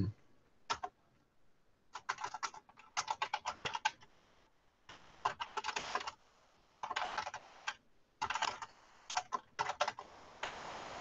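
Typing on a computer keyboard: runs of quick keystrokes in several short bursts with brief pauses between them, after a single click about a second in.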